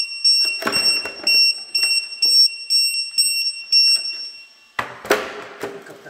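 High-pitched electronic beeping from the radio-controlled truck's electronics, nearly three short beeps a second. It stops suddenly about four and a half seconds in, followed by a sharp clunk and brief handling noise.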